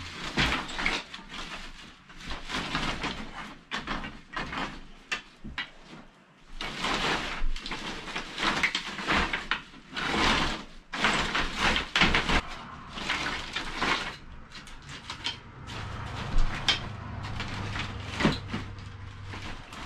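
Thin wooden lath strips rattling, clacking and scraping against each other as they are gathered and handled in a heap, in irregular bursts.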